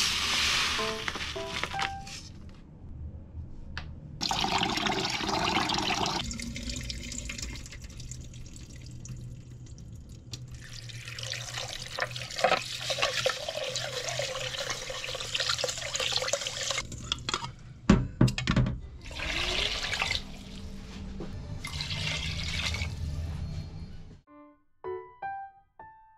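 Running tap water and jasmine rice being swished and rinsed in a rice cooker's inner pot, in several splashing bursts with quieter gaps between, under light background music. Near the end the water stops and only a few piano notes remain.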